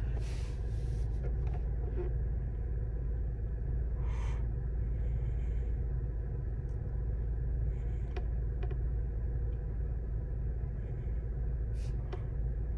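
Pontiac G6's 3.5-litre V6 idling, a steady low rumble heard from inside the car's cabin.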